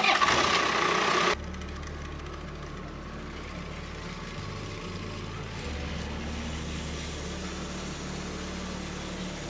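A portable band sawmill's engine running steadily at the control panel, its low hum shifting pitch a few times as the controls are worked. It opens with about a second of louder, harsher noise that cuts off abruptly.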